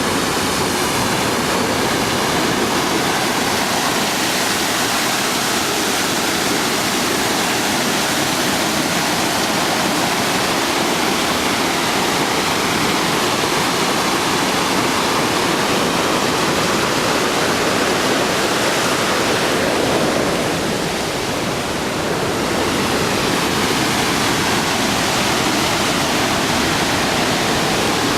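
Loud, steady roar of rushing water, a waterfall or fast mountain stream, with a brief slight drop in level about three quarters of the way through.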